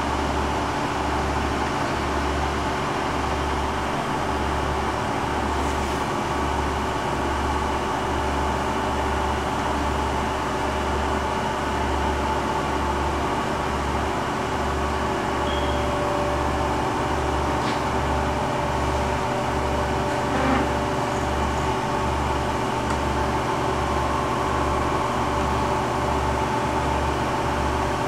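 Chevalier CG-1440A universal cylindrical grinder running smoothly through its automatic traverse grinding cycle. A steady machine hum with several held tones sits over a low throb that pulses a little faster than once a second.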